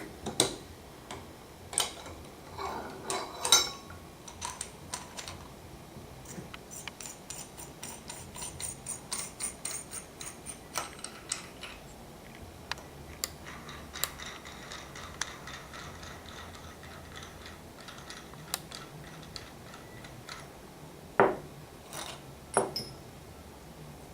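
Metal bearing-press tools and bottom bracket parts being handled: scattered clinks and knocks, with runs of quick light clicks and a faint metallic ringing. Two louder knocks come near the end.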